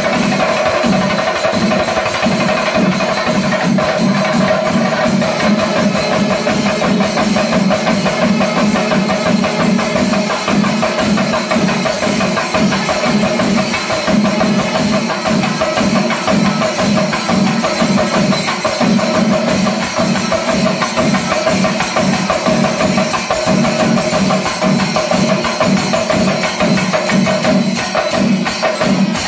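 Pandimelam temple ensemble playing: chenda drums beaten in fast, dense strokes with elathalam hand cymbals ringing over them and a wind instrument holding a steady tone. The playing stays loud and even throughout.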